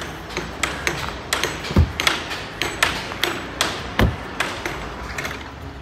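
A run of irregular sharp knocks and taps, with two heavier low thuds about two seconds apart.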